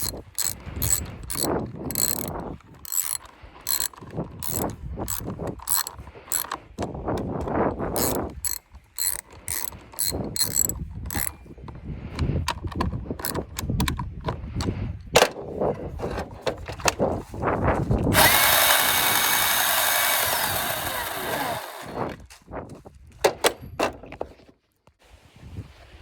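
Rapid clicks and rattles of the Milwaukee electric chainsaw being handled. About 18 seconds in, its motor and chain run for about three seconds at the loudest point, then wind down.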